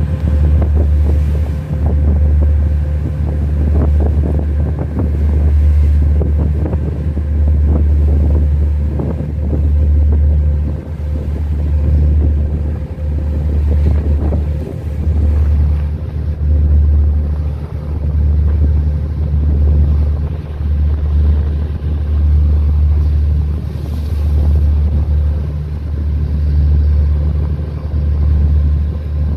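Wind buffeting the microphone in uneven gusts, over the steady drone of a boat's engine and the wash of the water.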